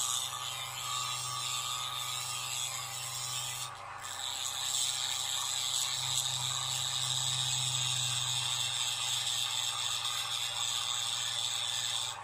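Small electric drill at low speed grinding down an eMMC chip on a phone circuit board to expose its pins, a steady high whine. It dips briefly about four seconds in, then runs on louder.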